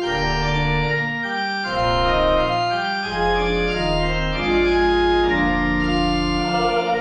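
Organ playing slow sustained chords over deep bass notes, the harmony changing every second or so, in the manner of a church hymn.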